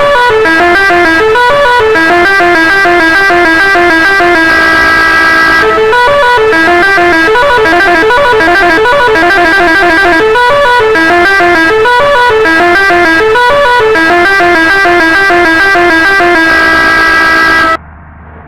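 Basuri telolet horn, an Indonesian multi-trumpet musical bus horn, playing a quick melody of short stepping notes over and over, very loud. It holds a sustained chord about five seconds in and again just before it cuts off suddenly near the end.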